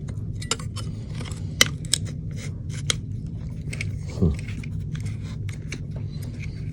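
Scattered small sharp clicks and taps of plastic and metal parts being handled and pushed together as the dust cover of an airsoft CZ Scorpion Evo is fitted, the loudest clicks in the first three seconds, over a steady low hum. A brief falling tone comes about four seconds in.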